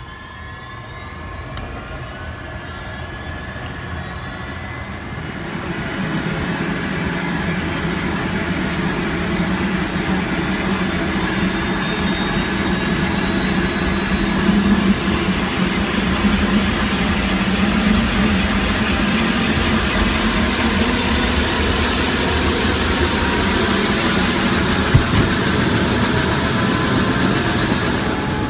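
Helicopter turbine engine spooling up: a whine rising in pitch over a low rotor hum, growing louder over the first several seconds and then holding steady as the pitch keeps creeping upward.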